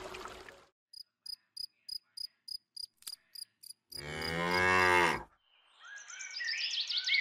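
A cricket chirping about three times a second, then a single cow moo lasting about a second, the loudest sound. Near the end a splashing, clattering water sound builds.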